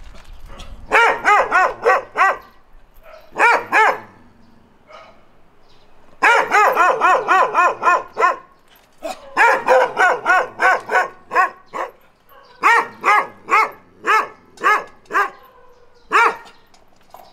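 Dog barking in quick volleys of sharp, high barks, about four or five a second, with short pauses between the runs.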